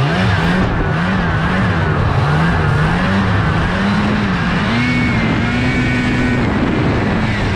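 Fan-cooled two-stroke Lynx snowmobile engine under way. Its note jumps up from a low, steady speed at the start, then rises and falls with the throttle, and climbs a little higher about five seconds in.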